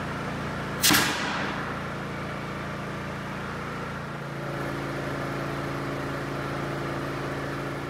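A motor running steadily with a low, even hum, and a single sharp metal clang from the aluminium scaffold about a second in.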